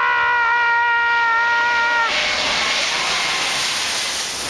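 Jet airliner engines: a steady high whine with several overtones, which cuts off about two seconds in and gives way to a loud, even rushing hiss.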